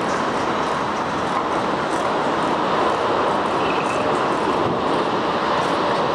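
Steady jet noise from a Cathay Pacific Cargo Boeing 747-8F's four engines as the freighter flies low on final approach with its landing gear down.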